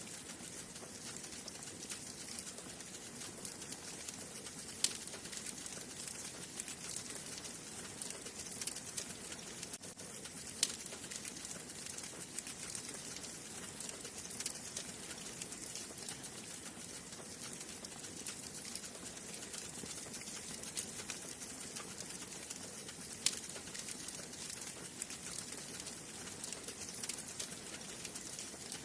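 Wood fire burning in a fireplace: a steady soft hiss with constant fine crackling and a few sharper pops, the loudest about five, ten and twenty-three seconds in.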